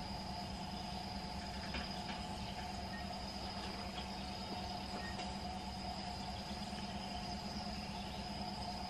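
Steady hum of distant diesel freight locomotives running, with a high steady insect buzz over it.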